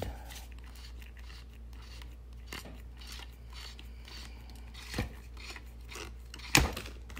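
Light clicks and knocks of metal and plastic parts as a pressure washer extension wand is unscrewed and pulled off the spray gun, with one sharper click near the end.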